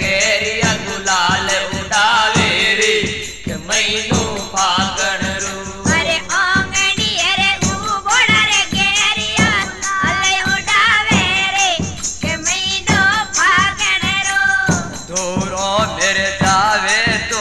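Rajasthani Fagan folk song: a wavering, ornamented sung melody over a steady hand-percussion beat.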